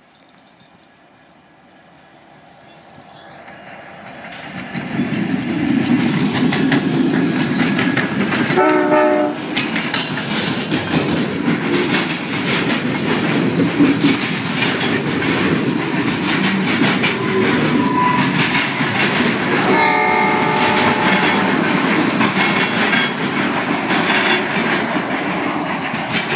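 A CN freight train led by two EMD SD75I diesel locomotives approaching and passing close by: a rumble that swells over the first few seconds into a loud, steady roar about five seconds in, full of the clickety-clack of freight-car wheels over the rail joints. A short multi-tone horn blast sounds about nine seconds in.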